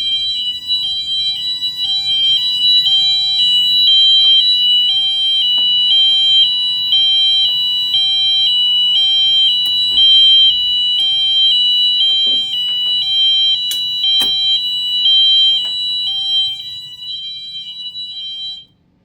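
Wheelock MT multitone fire alarm horns sounding the hi-lo tone, alternating between two pitches about twice a second. They are left on the hi-lo setting rather than the intended tone. A few clicks sound partway through, and the horns cut off abruptly just before the end.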